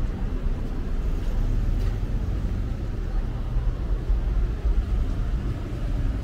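Low, steady rumble of city street noise with road traffic.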